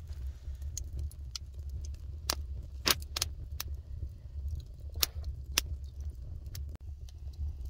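Wood fire in a stone fireplace crackling, with sharp pops at irregular intervals, the loudest about three seconds in, over a steady low rumble.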